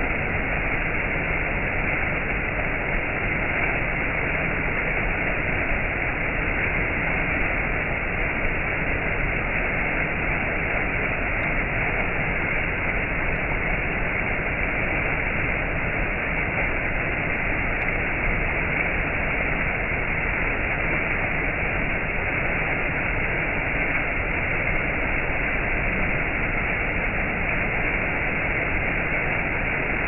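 Water rushing steadily over a rocky cascade: an even, unbroken sound of white water, slightly muffled.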